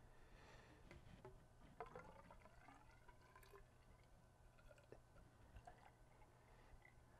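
Glycol antifreeze poured from a plastic jug into an open hose on a marine engine, trickling faintly, with a faint rising tone about two seconds in as the line fills. The engine's cooling passages are being filled with antifreeze for winter storage.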